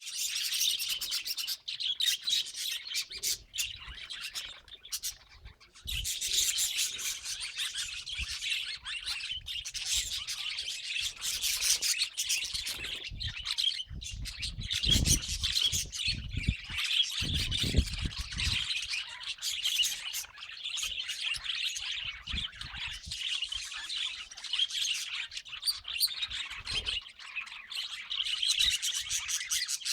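Budgerigars chattering and chirping without a break, with occasional squawks, and a few low rumbling thumps around the middle.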